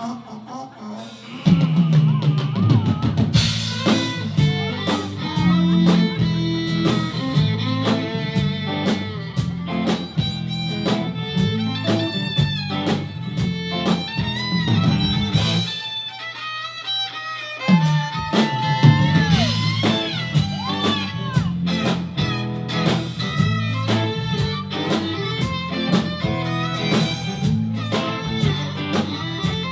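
Rock band playing an instrumental break with no singing: drum kit, bass and guitar. The band drops low for the first second or so, then comes in loud.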